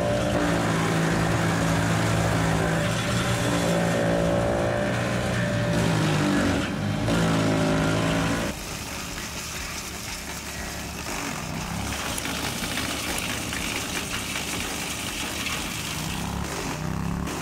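Wood chipper engine running at a steady pitch, pulling down twice under load and recovering. About eight seconds in the sound cuts abruptly to a quieter, rougher mechanical noise.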